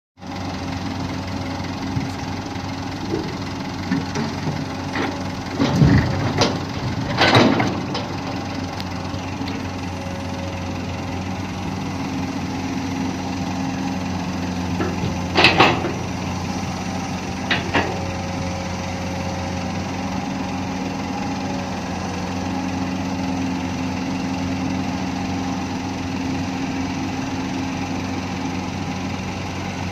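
Komatsu PC200 long-reach excavator's diesel engine running steadily as the machine swings and works its boom. A few louder clunks and rattles break in about six seconds in and again around the middle.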